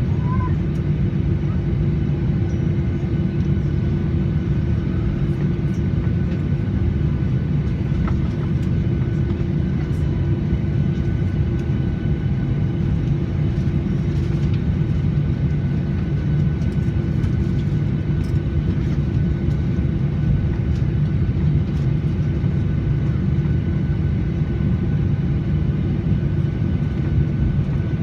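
Airliner cabin noise after landing: a steady low rumble from the engines and air systems with a constant hum, heard from inside the cabin, unchanging throughout.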